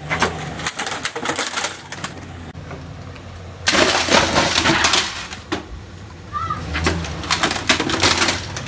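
Chevrolet Silverado 2500 HD pickup's engine running low as its front tyre rolls onto a Dell desktop computer tower, the case cracking and crunching in bursts, loudest about four seconds in. A bird calls briefly near the end.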